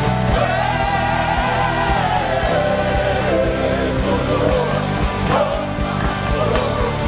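Live praise and worship music: a band with drums plays under a sustained, wavering sung melody.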